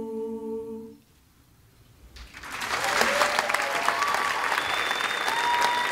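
An a cappella group holds its final chord, which cuts off about a second in. After a brief hush, the audience breaks into applause with cheers and whistling.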